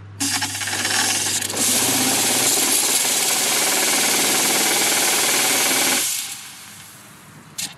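Water-methanol injection pump running its test cycle, forcing fluid out of the nozzles of the injection plate as a fine mist. The result is a loud, steady hissing spray over a low pump hum. The hiss builds over the first second or two, holds, then dies away about six seconds in as the pump stops.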